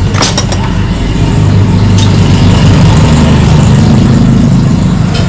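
An engine idling steadily with a low, even hum, loud and close. A few sharp clicks sound in the first half-second and once more about two seconds in.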